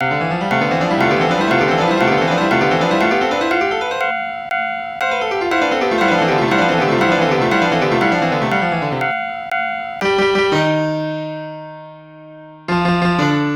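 Piano music: fast rising runs of notes repeated over and over, a brief break, more runs, then full chords struck about ten seconds in and again near the end, each left to ring out.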